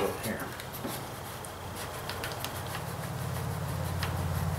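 A few light clicks of a battery cable being fitted to its terminal on a riding mower, over a low engine rumble from a passing vehicle that grows louder about three seconds in.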